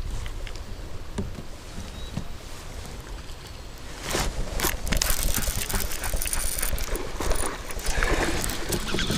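Irregular knocks and clatter with water noise from a fishing kayak on a river, growing louder and busier about four seconds in.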